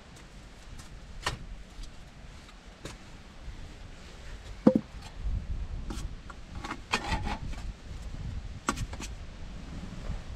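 Tools being handled and set down against wooden logs: a hand saw and a black-handled tool clattering and knocking on the wood in a few quick clusters. There is one sharp, ringing knock a little before the middle, the loudest sound, with scattered lighter clicks around it.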